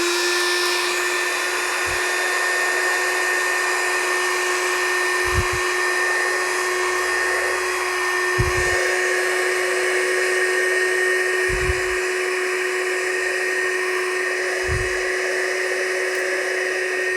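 Heat gun running steadily to shrink heat-shrink sleeving over a soldered wire joint: a constant fan whine over a rushing hiss of air, with a few soft low bumps every few seconds.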